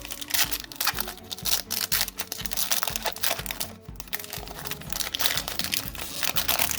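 Foil booster-pack wrapper crinkling as it is handled and opened, in quick crackly bursts, over background music with a steady beat.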